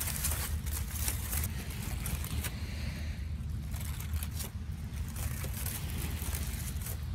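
Crumpled aluminium foil being pulled open by hand, crinkling in many short crackles, over a steady low rumble.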